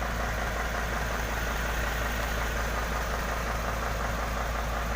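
Isuzu dump truck's diesel engine idling steadily.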